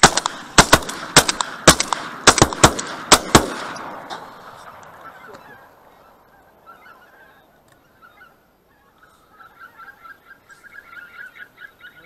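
A rapid volley of about ten shotgun shots fired by goose hunters at a flock overhead, packed into the first three and a half seconds, with the echo dying away over the next two. From about six seconds in, geese honk, growing stronger toward the end.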